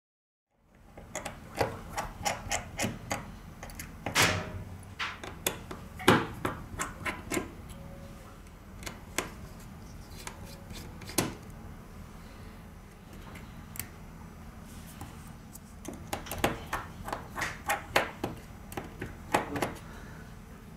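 Irregular light clicks and taps in clusters, from small hand tools and phone parts being handled during repair work, over a faint steady low hum.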